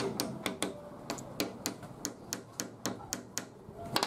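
A small hammer tapping brass pins into a wooden knife-handle scale, in quick light strikes about four a second. Near the end comes one louder knock as the hammer is set down on the bench.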